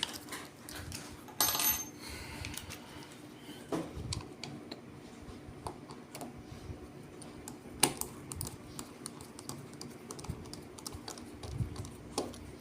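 Scattered clicks and taps from a molded case circuit breaker and its small parts being handled. There is a louder metallic clack with a brief ring about a second and a half in, and a sharp click near eight seconds.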